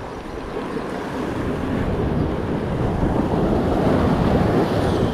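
Sea waves washing and wind blowing over the microphone, a steady rush that swells louder over the first few seconds and then holds.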